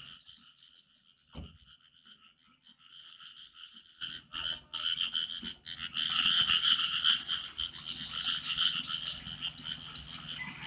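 A dense chorus of frogs calling, faint at first and much louder from about four seconds in, with a single knock about a second and a half in.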